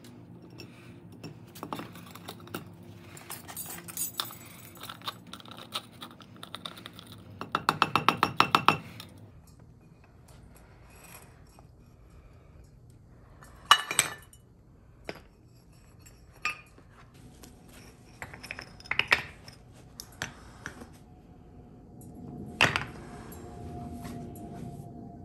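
Metal tongs and metal ingot molds clinking and knocking against each other and the bricks they sit on. About eight seconds in comes a quick rattle of a dozen or more clinks, and later single sharp knocks as molds are set down and stacked.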